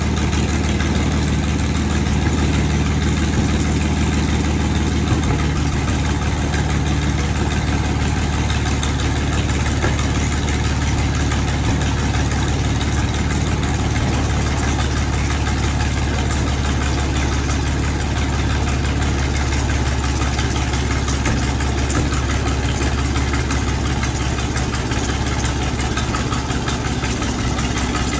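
Panther Ausf A tank's Maybach V12 petrol engine idling steadily, a deep, even running note with no revving.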